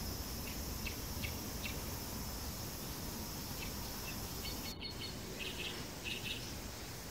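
Forest ambience: a steady high-pitched insect drone with short bird chirps in small clusters, over a low rumble.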